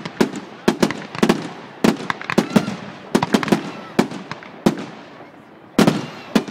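Aerial fireworks bursting overhead in a rapid, irregular string of sharp bangs, each with an echoing tail. There is a short gap about five seconds in, then another cluster of bangs near the end.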